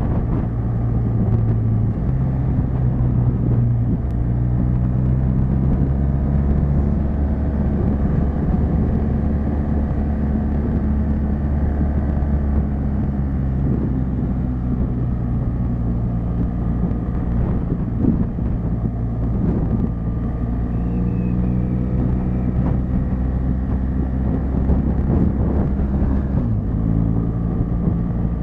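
Motorcycle engine running at road speed, heard from the rider's helmet with wind rush over the microphone; the engine's pitch shifts several times as the speed changes.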